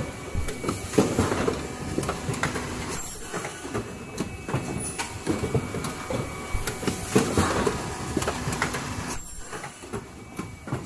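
Automatic N95 cup mask machine running: a continuous clatter of clicks and knocks from its indexing conveyor and stations, with louder surges about three seconds in and about nine seconds in.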